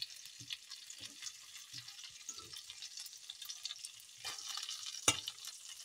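Salmon fillets sizzling and crackling in hot oil in a nonstick frying pan, with small clicks throughout and one sharp click about five seconds in.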